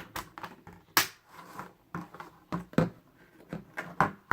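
Hard plastic Beyblade parts clicking and knocking irregularly as they are handled and fitted together, with a few sharper clacks.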